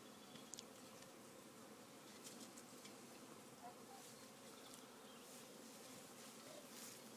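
Faint, steady buzzing of a honeybee swarm around a hive.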